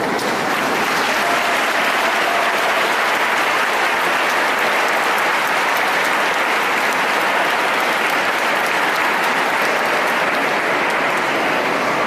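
A large congregation applauding in a church: dense, steady clapping that holds throughout and eases a little near the end.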